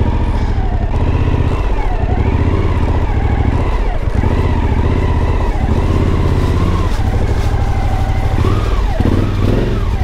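Suzuki V-Strom 1050XT's V-twin engine running at low revs as the motorcycle is ridden slowly across a dirt yard and pulled up, its pitch wavering a little.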